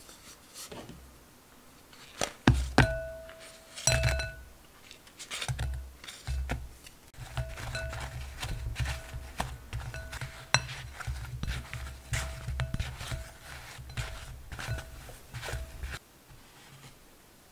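Baked doughnuts tossed in powdered sugar in a glass bowl with a utensil: rapid clinks and knocks against the glass, each with a brief ringing tone, over dull thumps of the doughnuts tumbling. It starts a couple of seconds in and stops shortly before the end.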